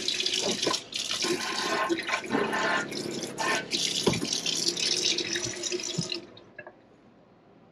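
Water from a Moen Adler pull-down faucet running into a stainless steel sink, with a couple of brief dips in the flow. It stops about six seconds in as the faucet is shut off.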